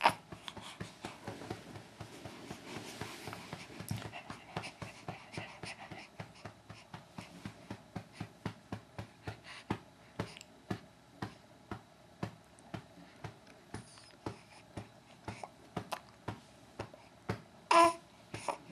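Steady rhythmic patting on a baby's back to bring up a burp, about two soft pats a second. Near the end comes one short, loud vocal sound.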